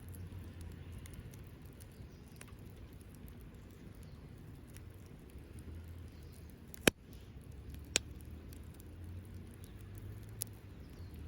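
Small wood fire crackling, with scattered faint ticks and a few sharp pops, the loudest about seven seconds in, over a steady low rumble.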